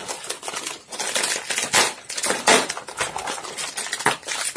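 Plastic snack-chip packets crinkling and crackling as two people pull and tear them open, an irregular run of loud crackles.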